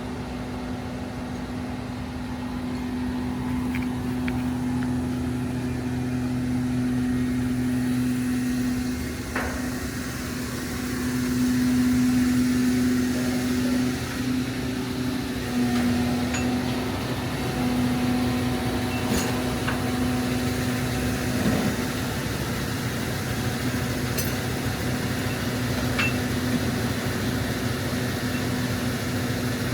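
Heavy machine's engine running steadily with an even droning hum, and a few light metallic knocks and ticks scattered through it.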